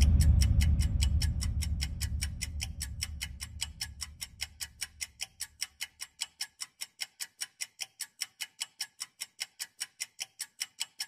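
Ticking-clock sound effect: a fast, even tick-tock. Background music fades out under it over the first few seconds.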